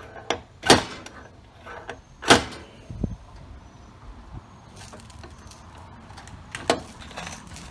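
Slide-hammer dent puller pulling on studs welded to a car body panel: two sharp metal whacks about a second and a half apart, a duller thump just after, and a lighter knock near the end.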